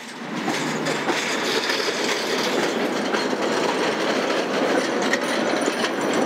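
Coupled Gothenburg tram cars rolling past at low speed on curved street track. The steel wheels run with a steady rumble and clatter over the rail joints and points in many small clicks. The sound fades up just as it begins.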